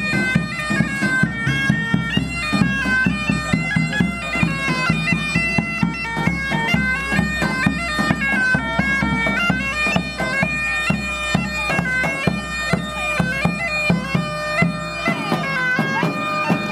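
Bagpipes playing a melody that moves in steps over a steady drone, with a regular drumbeat underneath.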